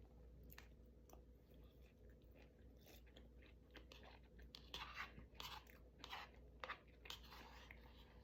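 A person chewing food close to the microphone, with irregular crunches that come thickest in the middle.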